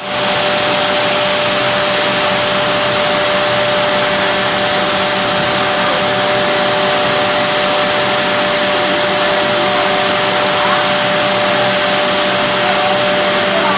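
Copper-smelting shaft furnace running under its air blast: a loud, steady rushing noise with a steady machine whine over it, while molten slag is tapped from its spout in a spray of sparks.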